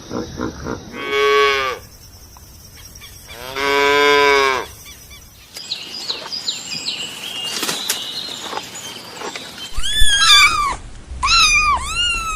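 A cow mooing twice, two drawn-out calls about two seconds apart, each rising and falling slightly in pitch. Afterwards comes a stretch of faint high chirping, then near the end a run of short, arching, higher calls.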